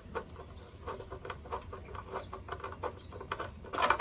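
Light, irregular clicks and rattles of parts and a hand tool being handled on a miter saw during a blade change, a few a second, with a louder clatter near the end.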